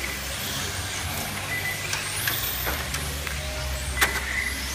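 Radio-controlled model cars racing, their motors whining high and rising and falling in pitch as they speed up and slow down, with a sharp click about four seconds in.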